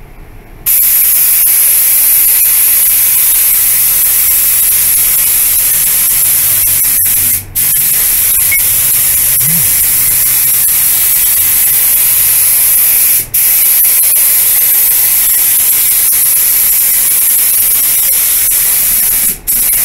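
Compressed-air gravity-feed spray gun hissing as it lays clear coat on a bumper. The hiss is loud and steady, starts just under a second in and is broken by three brief pauses.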